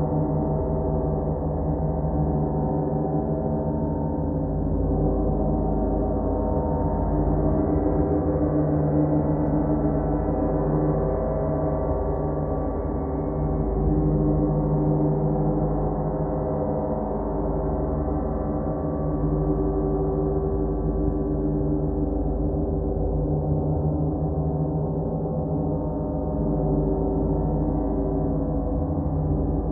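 Large hanging gongs sounding together in a continuous dense wash of sustained, overlapping tones that swells and ebbs gently, with no single strike standing out.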